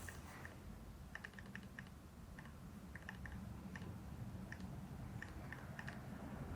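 Faint, irregular light clicks and ticks over quiet room tone.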